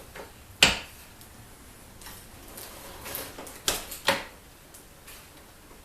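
Three sharp clicks and knocks from handling a DeWalt sliding miter saw: one loud one about half a second in and two more close together a little past halfway.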